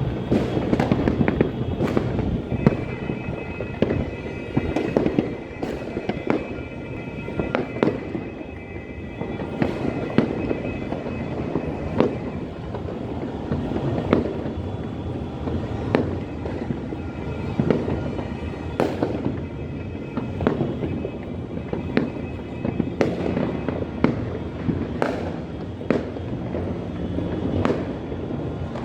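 New Year's fireworks and firecrackers going off all around: a dense, irregular stream of bangs and crackles with no letup.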